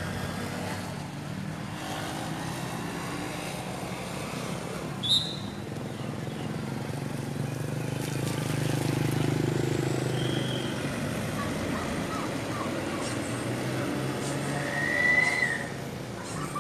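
Motor scooter engine passing close on a wet road, swelling about eight to ten seconds in over a steady low hum of vehicle engines. Two short high-pitched tones cut in, one about five seconds in and a louder one near the end.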